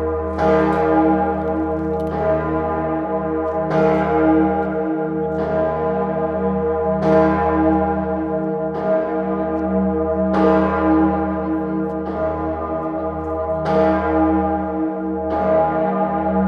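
The Salvatorglocke, Salzburg Cathedral's great bell tuned to E-flat, swinging in full peal. Its clapper strikes about every 1.7 seconds, and each stroke hums on into the next.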